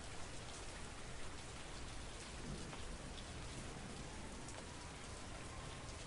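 City rain: steady rain falling, with scattered sharp drop ticks over a low rumble. A faint tone slowly rises in the second half.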